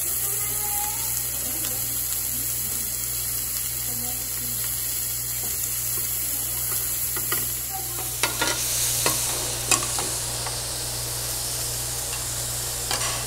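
Meat, shrimp and vegetables sizzling on a tabletop restaurant grill plate, a steady frying hiss over a low hum. From about eight seconds in, metal tongs and chopsticks clink sharply against the grill and plates.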